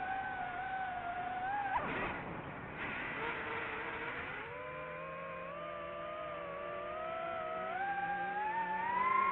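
Engine of a Can-Am off-road race car running at high revs. The pitch drops sharply about two seconds in with a short rush of noise, then climbs steadily and falls off again at the end.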